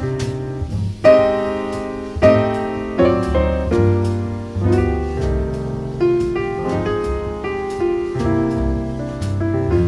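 Piano music, with notes and chords struck about once a second, each one fading before the next.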